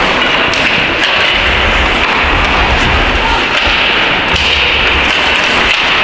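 Steady, loud noise of a youth ice hockey game in a rink, with a low rumble and scattered sharp clicks and knocks.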